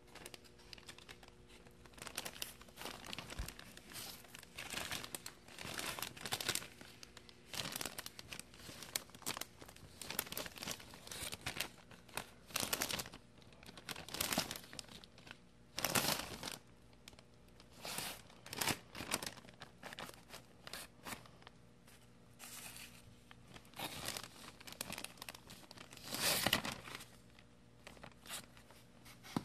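Clear plastic zip-top bag crinkling as hands dig into the damp peat moss inside it, in irregular bursts, the loudest about sixteen seconds in and again near the end.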